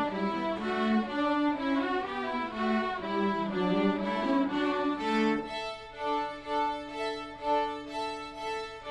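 Student string orchestra playing a Christmas carol arrangement, violins carrying a moving melody over sustained lower strings.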